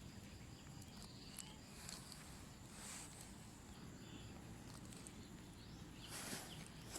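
Quiet forest ambience: faint rustling of leaf litter underfoot, a few soft swells and small clicks, over a faint high steady insect hum.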